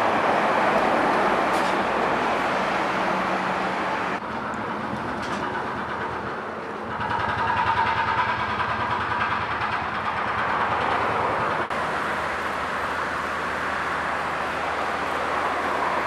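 Steady engine and machinery noise of heavy construction equipment such as excavators and a crane working on site. The sound changes abruptly about four, seven and twelve seconds in.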